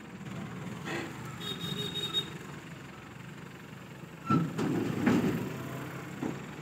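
Mobile crane setting a steel railway bogie down onto a flatbed trailer: a diesel engine runs steadily under two heavy metallic clunks about four and five seconds in, with a smaller knock near the end.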